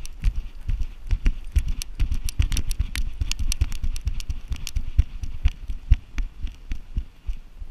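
Harness-mounted GoPro Hero3 jostled by a running giant schnauzer: rapid, irregular knocks and rattles of the camera and its mount, over low thumps from the dog's strides.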